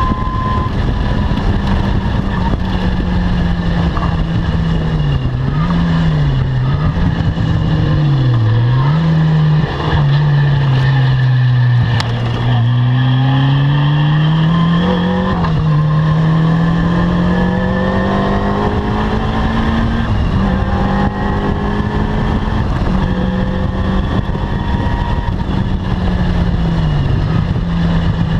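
Caterham R300 sports car engine running hard around a circuit. The engine note climbs and drops again and again as it accelerates, shifts and brakes, with several quick dips in pitch close together.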